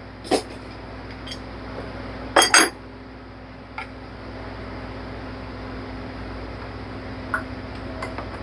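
Metal hand tools clinking and knocking against metal parts in an engine bay, several separate clinks with the loudest a quick pair about two and a half seconds in, over a steady low hum.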